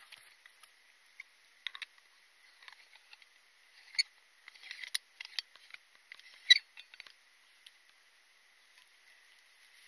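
A stovetop moka pot being screwed together by hand: scattered small metal clicks and scraping of the threads. The two loudest knocks come about four and six and a half seconds in.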